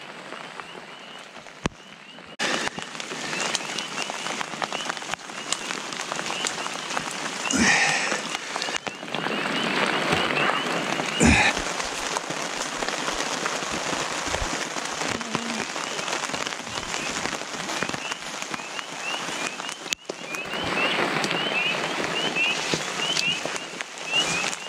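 Steady rain falling on a surface, growing louder a couple of seconds in, with two brief knocks partway through.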